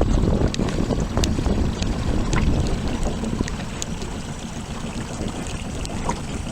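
Wind buffeting the microphone outdoors on the water: a loud, rough low rumble, with a few faint clicks scattered through it.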